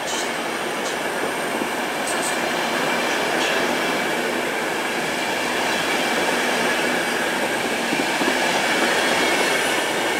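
PKP Intercity passenger coaches rolling past on the track: a steady rumble and rush of wheels on rail, with a thin high wheel squeal over it.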